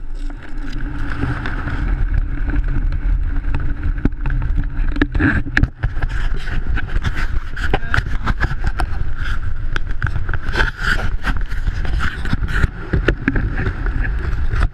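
Wind rushing over a GoPro camera under an open parachute canopy, with a steady low rumble. From about four seconds in, many sharp knocks and scrapes come as the camera is handled and rubs against the jumpsuit.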